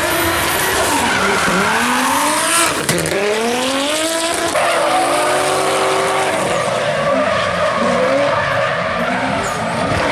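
Drift cars' engines revving hard, the pitch repeatedly dropping and climbing as the throttle is worked, over a steady hiss of sliding, smoking tyres.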